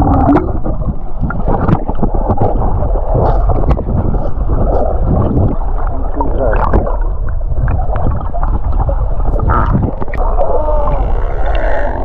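Muffled underwater sound picked up by an action camera in a waterproof housing: water rushing and sloshing around the case, with scattered clicks and knocks and a few wavering tones near the end.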